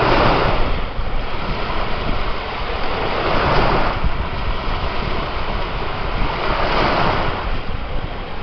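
Ocean surf: waves breaking and washing in, swelling three times about three and a half seconds apart, over a steady low rumble of wind on the microphone.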